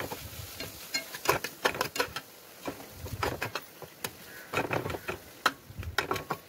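Spatula scraping and knocking against a frying pan while stirring a thick onion-tomato masala with spice powders, in irregular clicks and scrapes.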